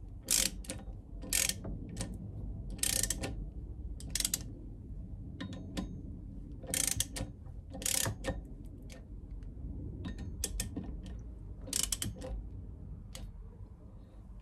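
Hand socket ratchet clicking in short runs as the nuts on a connecting rod are snugged down, with a brief burst of pawl clicks on each back-swing, about every second or two.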